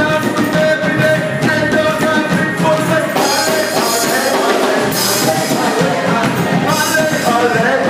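Gospel vocal group singing with band accompaniment, the voices holding long wavering notes over a steady drum beat.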